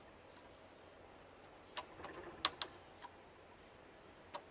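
A few sharp clicks and taps of tools and plastic parts as a CRT television is being taken apart: one about two seconds in, a quick cluster just after, and another near the end.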